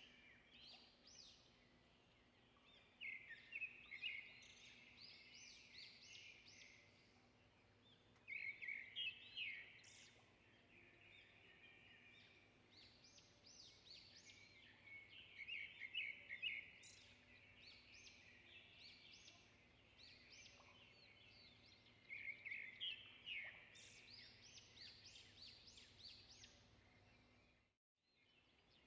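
Faint birdsong: a bird sings phrases of quick, high chirping notes about every six seconds, over a low steady background hum.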